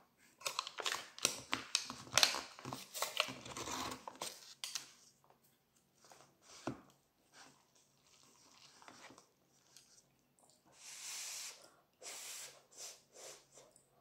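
Crinkling, crackling and scraping from a Knorr instant noodle cup and its peeled-back lid as the noodles are stirred with wooden chopsticks, densest in the first few seconds and sparser after. Near the end come two short rushes of noise about a second apart.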